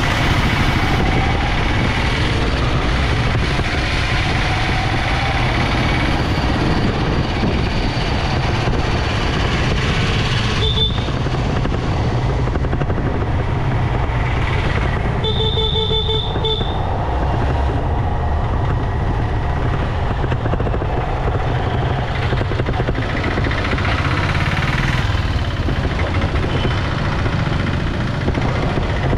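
Steady engine and wind rumble of a motorcycle riding through city traffic. A vehicle horn gives a short toot about a third of the way in and a longer honk of about a second and a half just past the middle.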